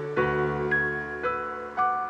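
Soft piano music: a slow melody with a new note struck about every half second over held chords.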